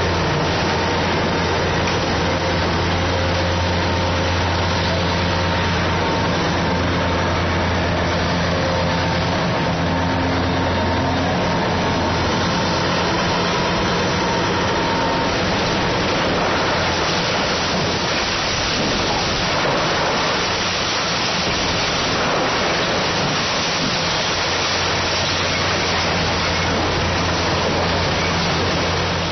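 Kobelco SK500 hydraulic excavator's diesel engine running with a steady hum under a constant rough rushing noise, which grows louder about halfway through as the hum fades back.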